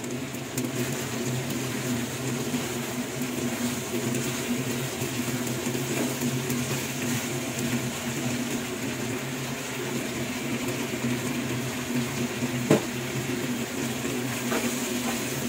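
Pork and chicken liver with onions sizzling in a frying pan as it is stirred, over a steady motor hum. One sharp knock stands out near the end.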